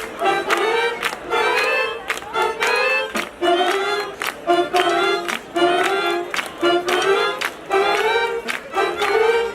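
Street brass band playing an upbeat tune: horns moving together in short, punchy phrases over a steady, regular drum beat.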